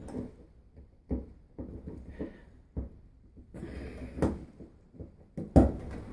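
Scattered clunks and knocks of parts being handled and fitted at a front-loading washer's door latch, about five in all with the loudest near the end, and a short scraping rustle a little past halfway.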